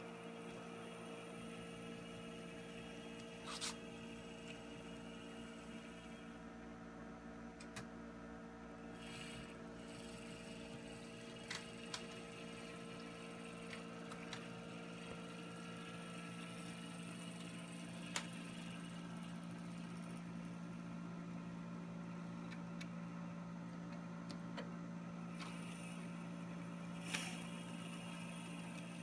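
Brass HO-scale Ken Kidder 0-4-0 plantation locomotive running along the track at a steady speed: a faint, steady motor hum, freshly lubricated, with a few light clicks now and then.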